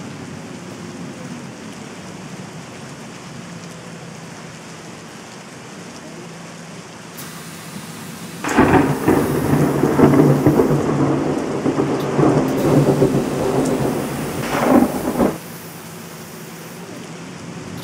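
Steady rain hiss with a low hum under it; about eight and a half seconds in, a loud rolling thunder rumble sets in, lasts about seven seconds and cuts off suddenly, a thunderstorm effect laid over the footage.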